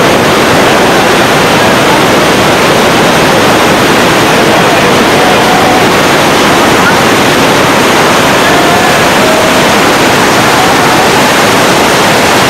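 Steady, loud rushing of floodwater surging through a bridge's arches, with faint scattered shouts from a crowd.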